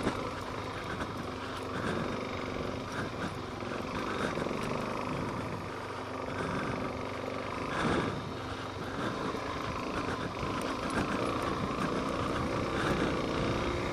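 Suzuki DR-Z400S single-cylinder four-stroke dual-sport engine running steadily at low speed on a rocky dirt trail descent, with a brief louder surge about eight seconds in.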